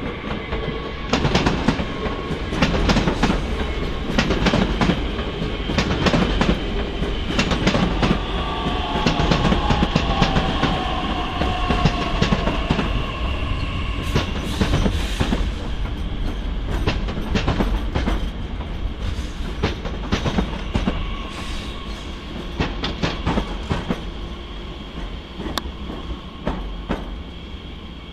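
Bombardier Talent 2 (class 442) electric multiple units passing, wheels clicking rhythmically over rail joints and points. A steady electric drive whine runs under the clicks, and a second whine falls in pitch about a third of the way in.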